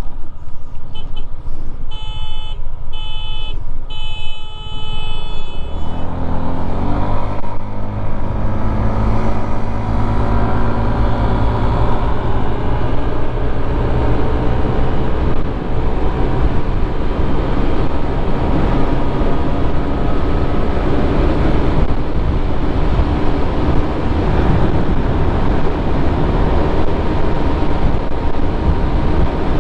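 Three short beeps about a second apart, then a Honda Airblade 150 scooter's single-cylinder engine pulling hard from a standstill in a drag race. Its drone rises briefly and then holds nearly steady under heavy wind noise as the scooter passes 80 km/h.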